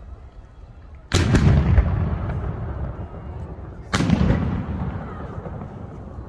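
Two aerial firework shells bursting about three seconds apart. Each is a sharp bang followed by a long rolling rumble that fades away.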